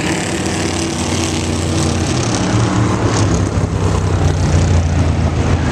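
Vintage open-wheel race car engines running at speed on an oval track, a deep engine note growing stronger about four seconds in, the 4-cam Ford champ car among them.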